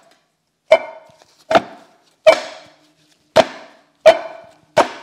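Cast-iron rear brake drum on a GM 10-bolt axle knocking and ringing as it is worked by hand to break it loose: six sharp metallic clanks, about one every three-quarters of a second, each ringing briefly. The drum is stuck tight on its seized shoes and adjuster.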